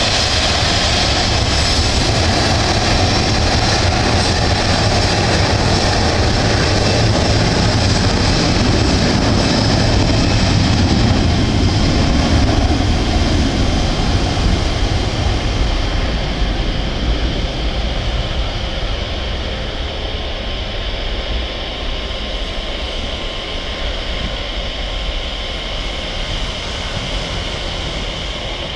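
The two CFM56-3 turbofan engines of a Boeing 737-300 freighter running as it rolls past: a steady rushing noise with a few steady high whining tones in it. It grows gradually quieter over the second half as the jet moves away.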